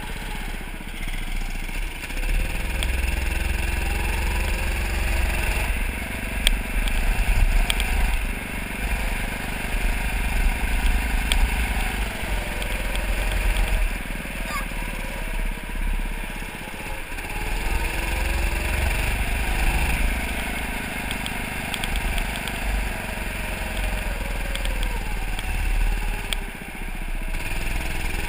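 Indoor go-kart engine running, heard from the driver's seat, its pitch rising and falling again and again as the kart speeds up and slows through the corners, over a heavy low rumble.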